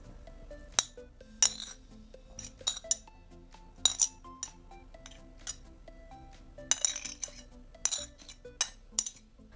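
A metal spoon clinking and scraping against a plate and the rim of a glass salad bowl as chopped boiled chicken is pushed into the bowl: about a dozen irregular sharp clinks.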